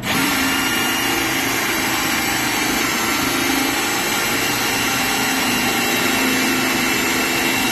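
Milwaukee M18 Fuel cordless hammer drill running steadily under load as its hole saw cuts into a pine board. It starts right at the beginning and holds an even pitch and level throughout.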